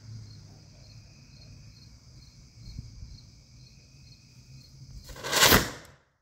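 Homemade manganese dioxide–aluminum thermite rocket motor firing about five seconds in: one loud rushing burst lasting under a second that ends abruptly. The motor burns too fast and blows apart. Crickets chirp steadily before it.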